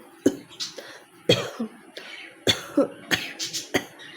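A woman coughing repeatedly in forced, deliberate coughs: about five loud harsh coughs with smaller ones in between.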